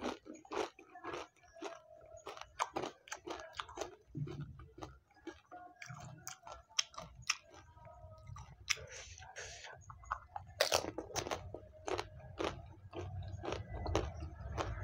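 A person chewing pani puri close to the microphone: the crisp fried puri shells give a run of sharp crunches and crackles, the loudest right at the start and another burst of them about ten seconds in.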